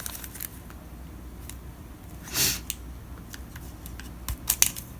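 Handling noise from a small smart speaker and its packaging being turned over in the hands: scattered light clicks and taps, with a brief swishing rustle about two and a half seconds in and a few quick clicks near the end.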